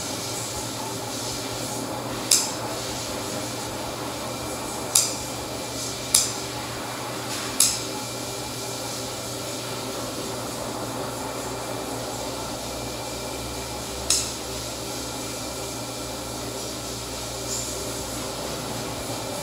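Dog nail clippers snipping the tips off a St. Bernard's nails: five sharp clicks spaced a second or more apart and a fainter one near the end, over a steady background hum.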